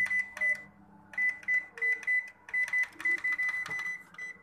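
Built-in microwave oven's keypad beeping: a short high beep with a click at each button press, pressed about a dozen times in quick runs to set the cooking time. A faint low hum sits underneath.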